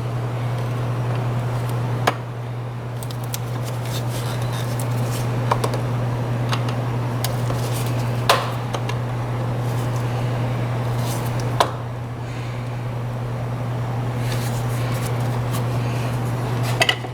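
A steady low hum throughout, with a few sharp clicks several seconds apart as the hose clamp on the intake air tube is tightened.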